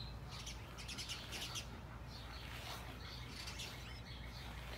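Pin brush swishing through a wolfdog's thick, shedding double-layered winter coat in quick repeated strokes, about two or three a second.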